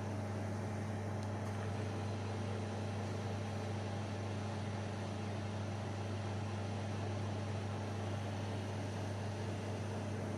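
LG MJ3965BQS convection microwave oven running with a steady hum while its turntable turns. This is a fault: the countdown is frozen at 1 minute 25 seconds, and the owner says the water inside is not heating.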